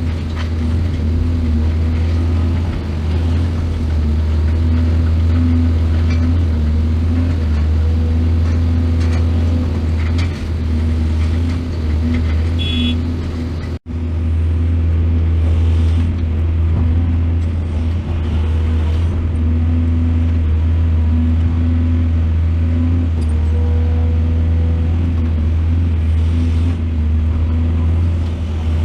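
Excavator's diesel engine running steadily with a deep, constant drone, cutting out for an instant about halfway through.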